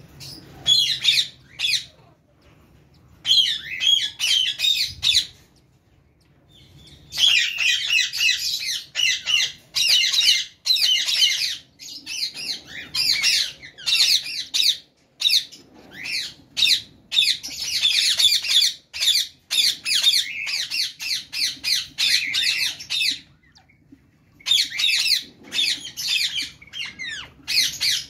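Pet parrots squawking and chattering in rapid bouts of shrill, harsh calls, broken by short pauses.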